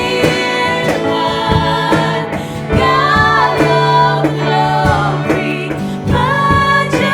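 Contemporary worship song played by a band with singing voices, regular drum hits and a held bass line.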